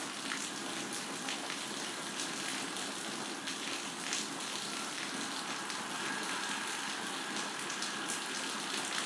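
Thick lehyam paste cooking in a pan, a steady sizzling hiss with faint ticks and scrapes from a wooden spatula stirring it.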